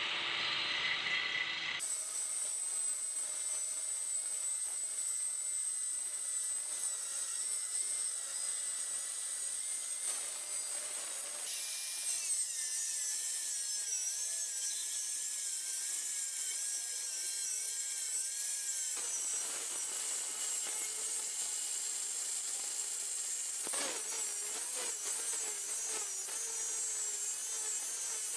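Electric angle grinder with a cut-off disc cutting through a rusty steel car wheel rim: a steady, harsh grinding with a high whine that drops in pitch at times. The sound shifts abruptly several times.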